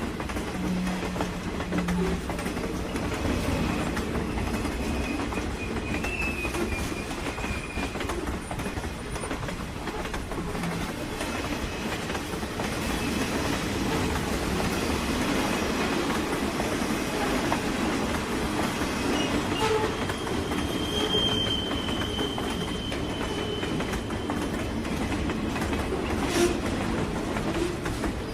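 Train running along the rails with a steady rumble, occasional knocks from the track, and two brief high wheel squeals, about a quarter of the way in and again past the middle.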